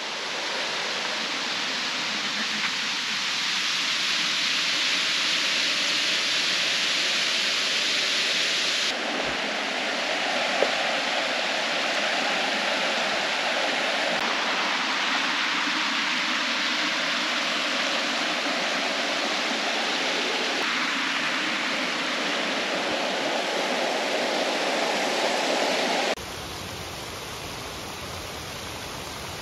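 Waterfall pouring steadily, a constant loud rushing hiss. The sound changes abruptly several times, with a clear drop in level near the end, as separate recordings are cut together.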